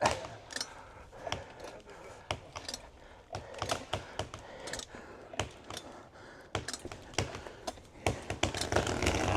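A felled maple's hinge wood cracking and popping in irregular sharp clicks under strain as the tree is pulled over. Near the end a rushing noise swells as the tree starts to go.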